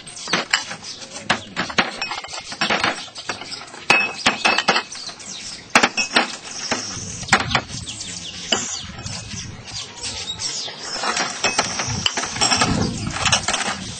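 Irregular clinks and knocks of small tea glasses being handled on a tray, over a steady hiss.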